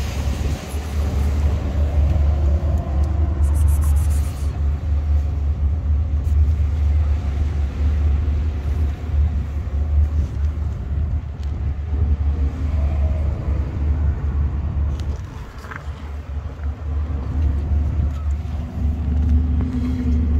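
Wind buffeting the microphone: a steady, loud low rumble that wavers in strength.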